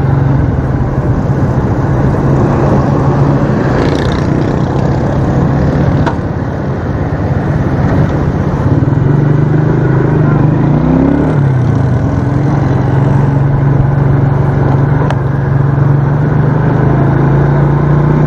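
Motorcycle engine running steadily under way, mixed with road and traffic noise. Around the middle the engine note dips and then picks up again.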